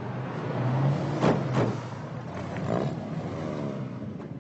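A vehicle engine running, with two sharp bangs about a second in, a fraction of a second apart.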